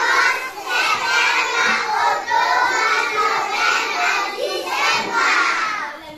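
A classroom of young children singing together in unison, many small voices overlapping without a break.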